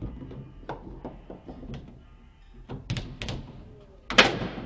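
Foosball table in play: the ball clacking off the players and rods in a run of sharp knocks, with one loud hard strike about four seconds in.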